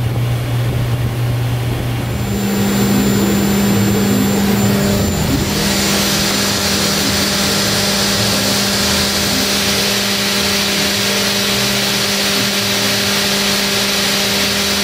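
Haas VF-4SS CNC vertical mill running: a steady pitched machine hum that steps up in pitch about two seconds in, with a steady high hiss joining about five and a half seconds in.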